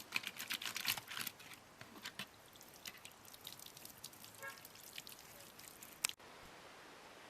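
Water dripping and splashing in quick, irregular drops, busiest in the first second or so and then thinning out. A sharp click comes a little after six seconds, after which only a faint steady hiss remains.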